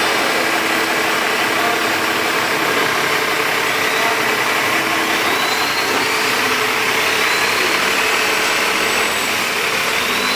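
An engine running steadily at a constant speed, with a dense, even hiss over it and no pauses.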